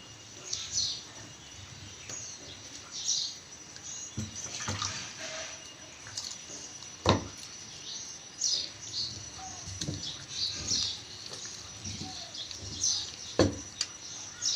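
Hands squeezing and swishing soaked soya chunks in a plastic bowl of water, with small splashes and squelches, and two sharp knocks, one about halfway through and one near the end.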